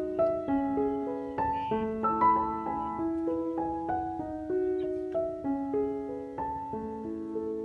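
Background piano music: a slow melody of single struck notes, each ringing on over the next.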